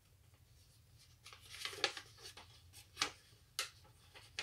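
Paper instruction leaflet and small packaging being handled and unfolded: soft rustling from about a second in, with several sharp paper crackles.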